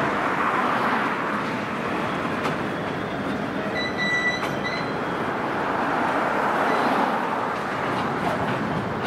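Freight cars rolling steadily across a steel girder railroad bridge, a continuous rumble of wheels on rail. A brief high wheel squeal comes about four seconds in.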